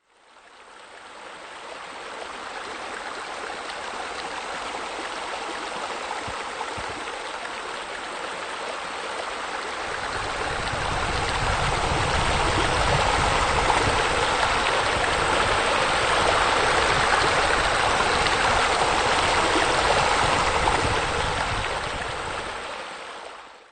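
Water from a natural rock waterfall spilling and splashing into a swimming pool, a steady rushing that grows louder and fuller about ten seconds in.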